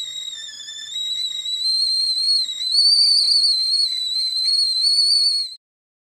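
Tea kettle whistling at the boil: one high, slightly wavering whistle that grows louder, peaks about halfway through, then cuts off suddenly near the end.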